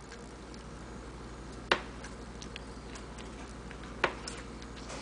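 A kitchen knife chopping through a block of butter, its blade knocking sharply onto the counter twice, about two seconds apart, with a few faint ticks in between.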